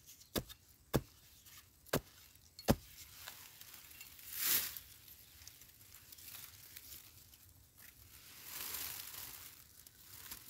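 Digging for a wild yam tuber by hand tool: four sharp knocks of the tool striking hard earth in the first three seconds, then two bouts of scraping and rustling of soil and dry leaves, one about halfway through and a longer one near the end.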